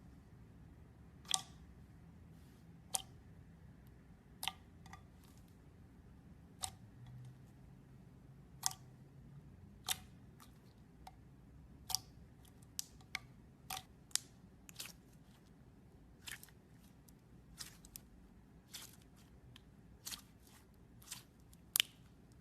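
Slime being handled, with sharp clicking pops about once a second, some coming in quick pairs.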